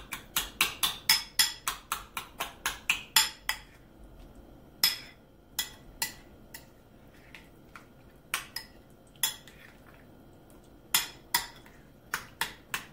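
Metal spoon clinking against a ceramic bowl while stirring and mashing guacamole. There is a quick run of taps, about four or five a second, for the first three seconds or so, then scattered single clinks.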